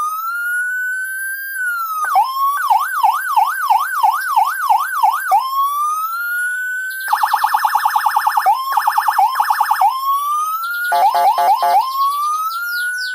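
Electronic siren module running through its tones. A slow rising wail is followed by a fast yelp sweeping up and down about three times a second, then another rising wail. Next comes a rapid stuttering hi-lo pulse, then a brief burst of quick chirps, and a last rising wail.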